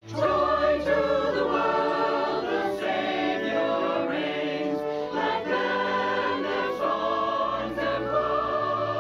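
A choir singing held, sustained notes in harmony over a low accompaniment.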